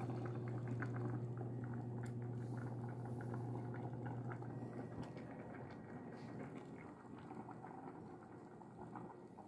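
A pot of beans, thickened with a cornstarch slurry, simmering on the stove with irregular bubbling and popping over a steady low hum, slowly growing fainter.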